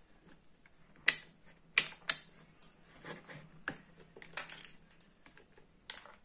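Irregular sharp clicks and taps, about six of them, with a small cluster in the middle, from hard plastic and metal parts being handled: wires, spade connectors and multimeter probes moved about on a wooden bench. A faint steady hum runs underneath.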